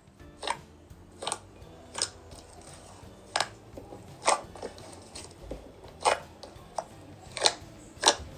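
Slime being pressed and squeezed by hand, giving about nine sharp, crunchy pops at an irregular pace of roughly one a second.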